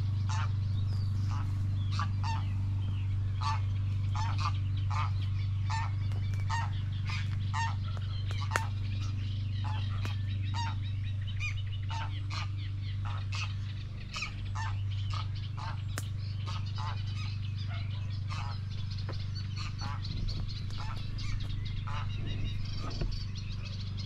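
Geese honking over water: a run of repeated honks, two or three a second, that thins out about halfway through. Under them runs a steady low rumble.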